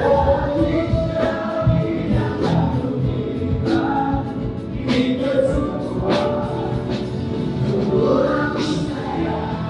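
Men and women singing a song together through microphones over musical accompaniment.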